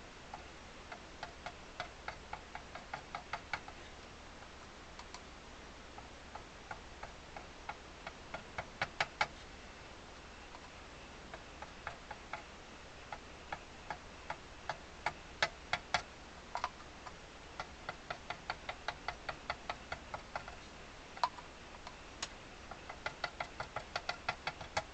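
Light, sharp taps of a fine applicator tip on an aluminium accordion grille as dots of super glue are dabbed on one after another, in runs of several ticks a second with short pauses between them.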